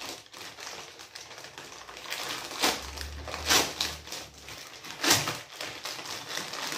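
Plastic parcel wrapping crinkling and rustling as it is pulled open by hand, with three louder, sharper crackles about two and a half, three and a half and five seconds in.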